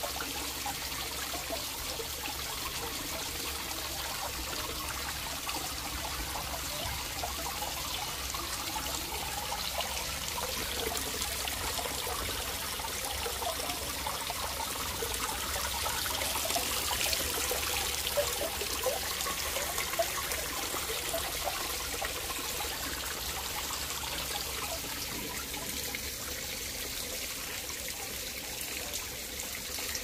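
Small rock garden waterfall: water trickling and splashing in many thin streams off a stone ledge onto the stones below, steady, a little louder in the middle.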